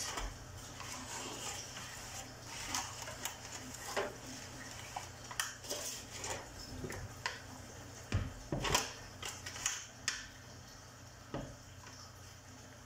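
Aluminium foil baking trays being picked up, moved and set down on a counter: scattered light clicks, knocks and foil crinkles, the loudest a couple of knocks about eight seconds in. Near the end a wooden spoon moves soaked bread mixture into one of the trays.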